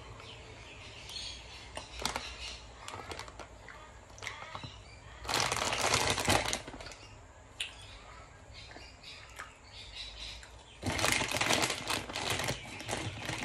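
Plastic sweets bag crinkling and rustling as it is handled, in two louder spells about five seconds in and again near the end, with scattered light clicks and taps between.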